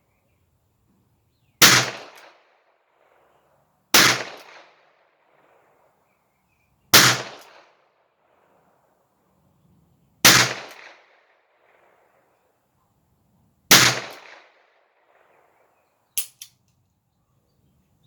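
Smith & Wesson Model 17-3 .22 LR revolver fired five times in slow, deliberate single shots a few seconds apart, each crack trailing off in a short echo. Two small sharp clicks follow near the end.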